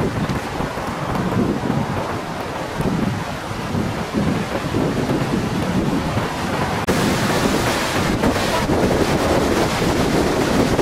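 Flash flood surging down a dry sandy wash, its front a mat of floating wood debris: a steady rushing rumble that turns hissier about seven seconds in.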